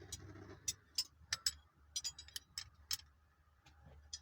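A dozen or so sharp, irregularly spaced clicks and ticks from hand tools fastening a new shift boot and its trim ring.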